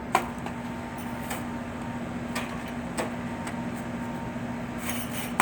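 Snow and ice being knocked and scraped off a heat pump outdoor unit's bottom coils: a few sharp knocks, the loudest just after the start and at the very end, over a steady low hum.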